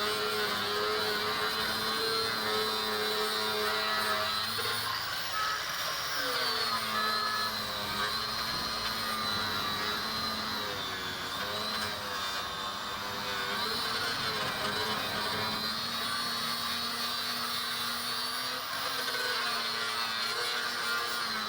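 Handheld electric sander running steadily on a car's damaged body panel, preparing it for repair; its motor whine dips briefly in pitch several times as it is pressed into the work.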